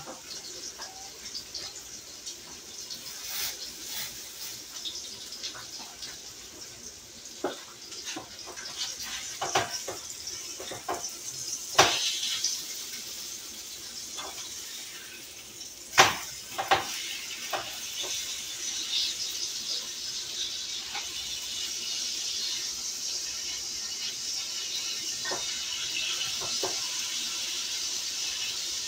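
Hamburger patties sizzling in a frying pan, with scattered clacks of a spatula against the pan, two of them sharper about twelve and sixteen seconds in. The sizzle grows louder and steadier in the second half.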